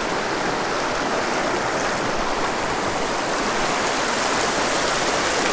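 Small, shallow mountain stream rushing and burbling steadily over rocks close by, a continuous even sound of running water.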